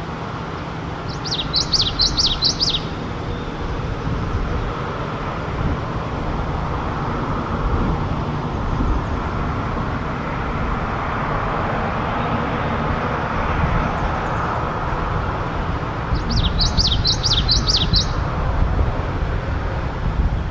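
Male common yellowthroat singing twice, about a second in and again about sixteen seconds in. Each song is a quick run of repeated high notes lasting about a second and a half. Steady road traffic noise runs underneath.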